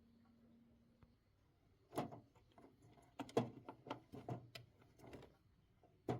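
A faint steady hum for about the first second, then a quick series of light clicks and knocks starting about two seconds in, about a dozen over four seconds, from parts being handled by hand.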